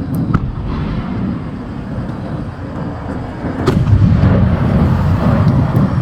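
Fireworks display: deep booms of aerial shells with a rolling low rumble, a few sharp cracks near the start and a loud bang a little past halfway, after which the rumbling grows louder.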